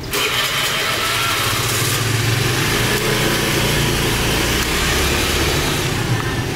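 A motor vehicle's engine running close by, starting abruptly, with a steady low hum under a broad hiss.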